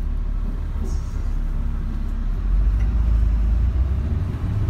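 Engine and road rumble of a moving vehicle, heard from on board: a steady low drone that grows louder about halfway through.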